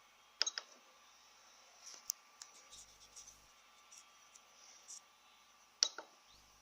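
Sharp clicks: a loud double click about half a second in and another near six seconds, with a few faint ticks between them.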